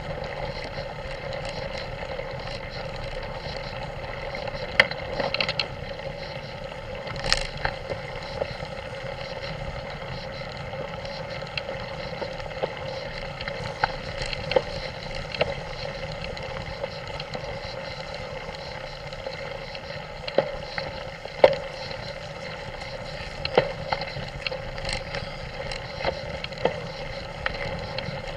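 Mountain bike ride over a muddy gravel track, picked up by a camera mounted on the bike: a steady rumble and hiss of tyres and wind, with frequent sharp knocks and rattles as the bike jolts over the rough ground.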